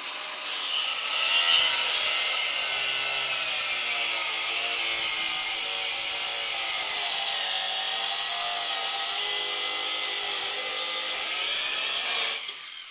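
Cordless angle grinder with a metal cutoff wheel cutting through steel-braided rubber fuel hose. The motor runs lighter for about a second, then bites into the hose and runs loud and steady with the hiss of the cut, its pitch wavering under load, and winds down near the end.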